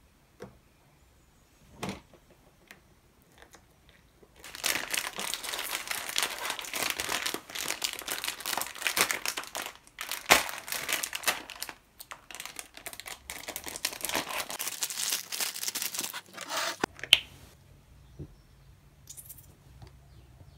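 Plastic snack packet crinkling as it is torn open and handled, for about twelve seconds with a couple of short breaks, after a few light clicks; a sharp click comes near the end.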